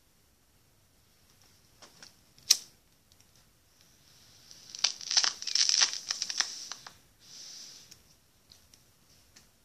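A lighter clicked once, then its flame held to a smoke: a couple of seconds of crackling over a hiss as it is lit and drawn on, followed by a short hiss.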